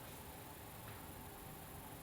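Whirlpool washing machine at rest between drum turns during a fast wash: only a faint steady hiss, with one soft tick about a second in.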